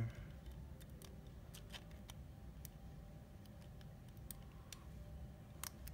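Faint, irregular small clicks of a Master M175 combination lock's number wheels being turned one number at a time while a thin feeler gauge probes for the gates.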